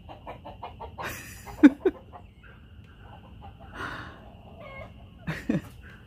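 Chickens clucking, with two loud short squawks that fall in pitch about a second and a half in, and a few more calls near the end, as a dog goes after a chicken.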